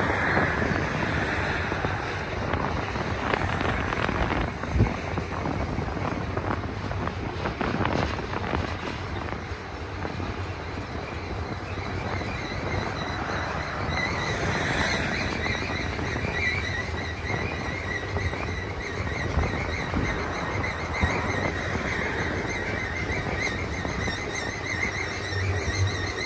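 Long train of autorack freight cars rolling past, steel wheels rumbling and knocking over the rail. From about halfway a wavering high squeal joins in, wheel flanges scraping the rail on the curve.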